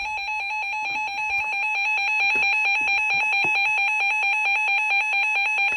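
Weather radio emergency alert tone: a loud, steady electronic alarm tone held unbroken, signalling that a warning message is about to be broadcast.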